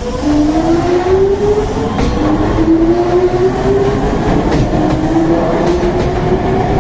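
Nankai electric commuter train accelerating away from the platform: its traction motors give a whine that climbs in pitch in several repeated steps, with a few clicks from the wheels on the rails.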